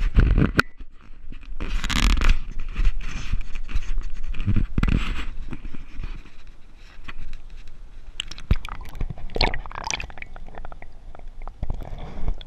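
Water sloshing and splashing around a camera held at and then below the surface of a shallow river, with irregular knocks and scrapes from handling. Near the end it turns to muffled underwater gurgling.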